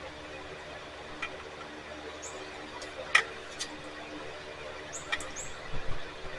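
Rubber fuel-line grommet being forced into the hole of a trimmer's fuel tank: a few sharp clicks and short high squeaks of the tight rubber, the loudest click a little after three seconds. The grommet is a tight fit and won't slide through easily.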